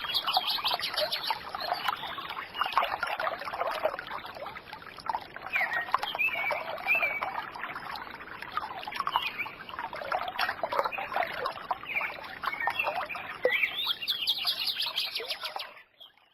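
Birds chirping and calling over trickling water, fading out near the end.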